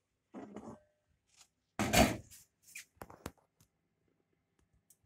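A pan lid handled with a cloth as it is lifted off a cast-iron skillet: a short rub, a loud clatter about two seconds in, then a few light knocks.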